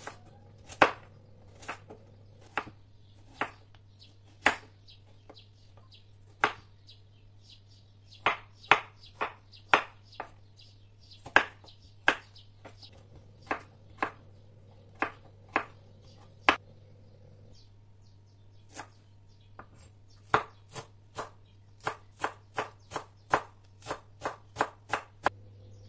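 Chef's knife chopping vegetables on a wooden cutting board, dicing carrot and potato and then herbs: separate sharp knocks at uneven intervals, quickening into a fast run of chops near the end.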